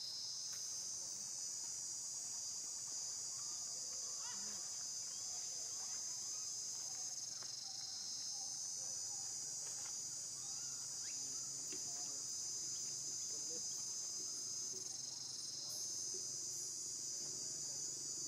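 Steady, high-pitched insect chorus droning without a break, swelling slightly near the end, with faint short chirps and calls scattered beneath it.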